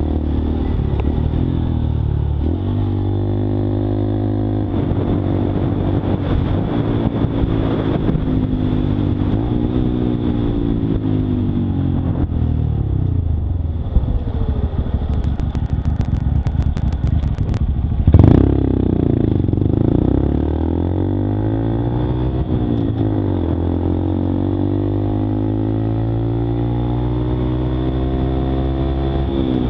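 Honda Monkey 125's single-cylinder four-stroke engine running under way, its pitch rising and falling over and over as the revs change. A brief loud rush breaks in a little past the middle.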